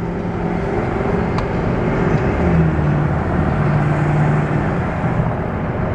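Motor vehicle running, a steady engine hum under road noise that shifts a little in pitch.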